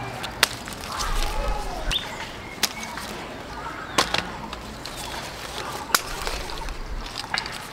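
Garden scissors snipping through lemon stems on the tree: four sharp snips spread over several seconds, with leaves rustling between them.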